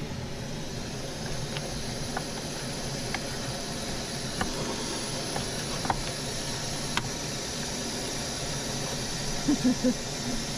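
Steady hiss of a gas burner running, with a few faint light ticks over it.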